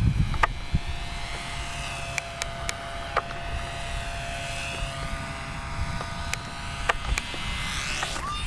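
Radio-controlled model airplane's motor whining high overhead, its pitch drifting up and down as it flies around, with a few sharp clicks.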